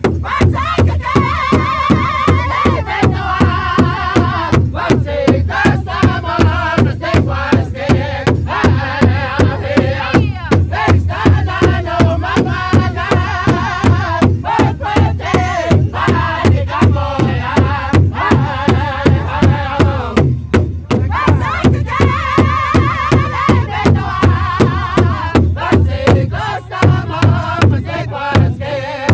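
Powwow drum group: several men striking one large shared hand drum together in a steady, fast beat while singing a chanted song in high voices. About twenty seconds in the singing drops away briefly and the drum beat carries on alone before the voices return.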